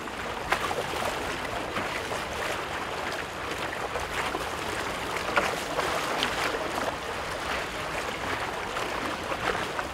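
Water splashing and rushing, with many small, irregular splashes over a steady wash.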